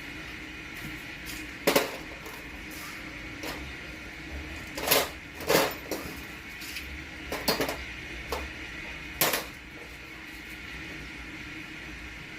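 Irregular sharp metallic clinks and knocks, about seven of them, the loudest near two seconds and around five seconds in, from hand tools and metal parts being handled during engine repair work, over a steady faint hum.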